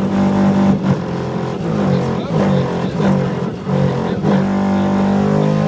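Subwoofers of a Rockford Fosgate Mini Sound Lab playing a loud bass demo track at competition level. The tones switch back and forth between two pitches, then settle into one long held tone about three-quarters of the way in.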